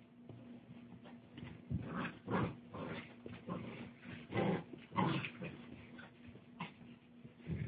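Tosa Inu dogs playing over a tug toy, making short, irregular vocal sounds one or two a second, starting about two seconds in.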